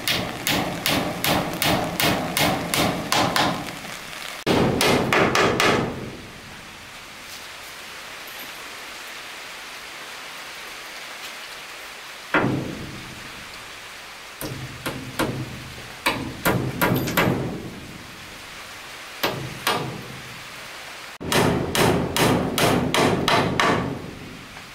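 Hammer blows on wood in runs of quick strikes, about three a second, with pauses between runs. A steady hiss of rain fills the pauses.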